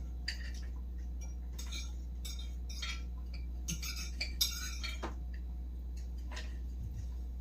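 Forks and knives clinking and scraping on dinner plates during a meal: scattered light clinks, busiest about four to five seconds in, over a low steady hum.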